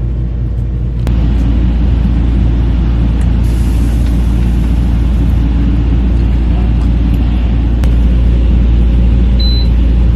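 Loud, steady, engine-like drone of a neighbour's pressure washer and yard equipment, with an air conditioner running; it steps up about a second in. A short electronic beep sounds near the end as the air fryer's touch panel is set.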